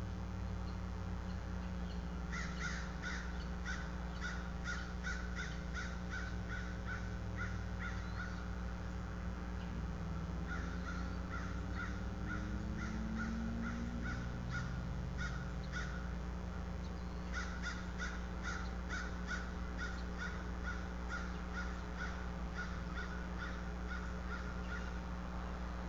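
Crows cawing in long, steady runs of harsh calls, about two a second, with short breaks between the runs.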